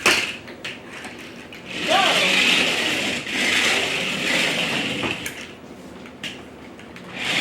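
Remote-control monster truck toy's small electric motor and gearbox whirring for a few seconds from about two seconds in, then starting again at the very end, with a couple of sharp clicks in between.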